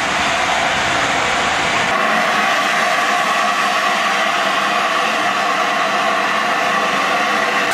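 Coaches of a passing train rumbling along the track, then, from about two seconds in, a steady loud hiss of steam from the standing LNER A4 Pacific steam locomotive 'Sir Nigel Gresley'.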